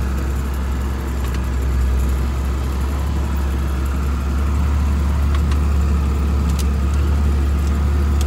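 Spreader truck's engine running steadily, heard from inside the cab as a deep drone while it drives across a rough pasture, with a few light clicks.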